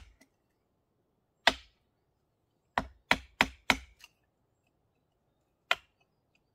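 Steel-headed hammer striking the wooden handle of a chisel, driving it into a thick wooden plank. One sharp knock, then a quick run of four blows about three a second with a lighter tap after, and one more blow near the end.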